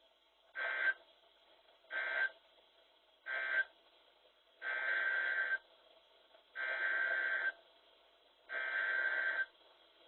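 NOAA Weather Radio EAS data bursts (SAME digital tones) with a harsh, buzzy warble: three short bursts, typical of the end-of-message code closing one alert, then three longer bursts, the header opening the next alert.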